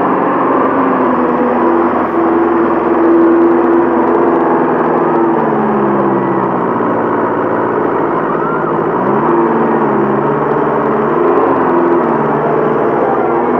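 Tractor diesel engine running hard under load, its pitch dropping and then rising twice as the revs come back up while the wheels churn through deep mud.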